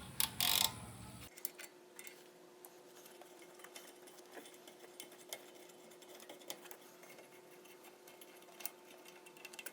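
A short clatter of hand tools in the first second, then a quiet stretch with faint, scattered clicks as a socket wrench works on the brake caliper bolts.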